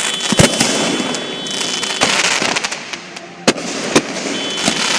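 Fireworks going off: a string of sharp bangs, the loudest about half a second in, over a continuous crackle and hiss of bursting shells.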